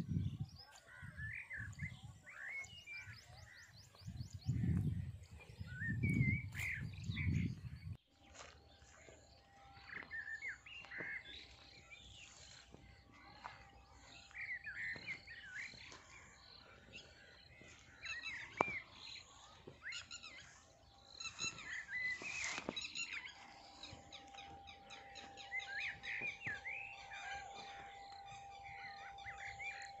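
Many small birds chirping and twittering over open farmland. There are low rumbles in the first several seconds, and a faint steady hum from about eight seconds in.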